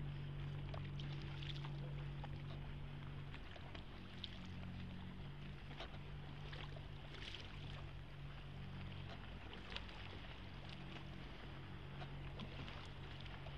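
Oar strokes and water splashing and dripping around a small rowed boat, with short splashes every second or two, over a steady low engine hum from motorboats on the canal.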